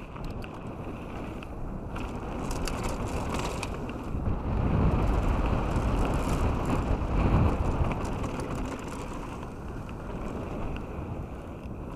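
Canyon Strive 8.0 enduro mountain bike rolling fast down a gravel trail: tyre crunch and rattling of the bike over loose stones, under a steady rush of wind on the camera microphone that grows louder in the middle.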